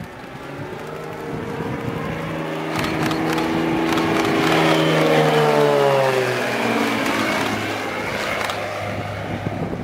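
Single-engine aerobatic propeller plane droning through a display manoeuvre. It grows louder to a peak about five to six seconds in, then its pitch drops as it passes low by and the drone fades away.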